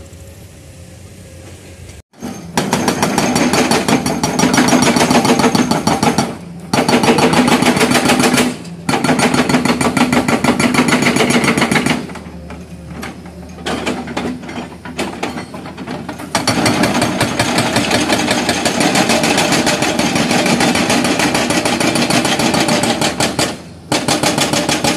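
Hydraulic breaker on a Tata Hitachi excavator hammering rock with rapid, even blows, starting about two seconds in. It runs in stretches of a few seconds broken by brief pauses, with a longer, quieter lull around the middle.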